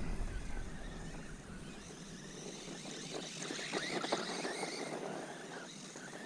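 ZD Racing Rocket 1/16-scale brushless RC desert truck driving: the motor's whine shifts in pitch and the tyres crackle over sandy grit, growing louder a few seconds in, then fading.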